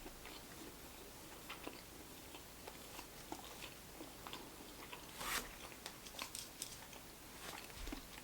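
A person chewing a fried chicken sandwich close to the microphone: faint wet mouth clicks and small crunches, with a brief louder crunch about five seconds in.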